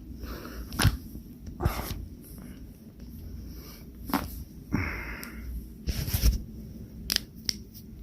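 Neck joints cracking as the neck is manipulated: a series of sharp pops, with loud ones about a second in, near two seconds and near four seconds, and a quick cluster around six seconds. A short hiss comes just before the cluster, and lighter clicks follow near the end.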